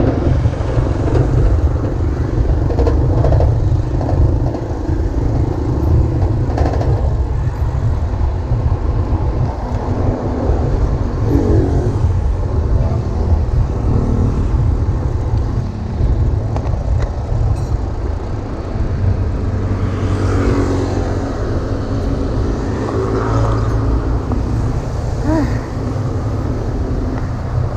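Continuous low rumble of wind on the microphone, mixed with road traffic noise, while riding outdoors on a street.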